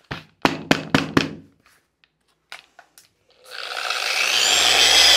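A few sharp knocks in the first second and a half. Then, about three and a half seconds in, an electric polisher fitted with a 3000-grit foam sanding pad starts up against the marble-plaster wall, its whine building steadily. This is the gloss-extraction polishing stage.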